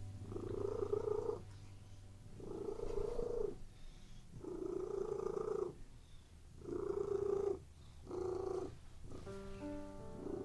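Domestic cat purring close up, in a slow rhythm of roughly one-second phases with short pauses between, five in all. Music comes in near the end.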